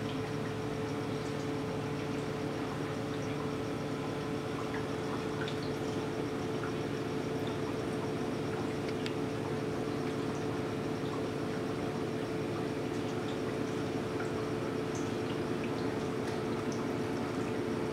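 Reef aquarium filtration running: a steady pump hum under water trickling, with small scattered drips.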